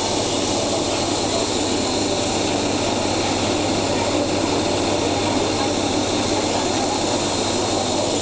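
Steady, even rushing noise of machinery with a low hum underneath, from a steam locomotive standing while its tender is coaled by a hydraulic grab crane.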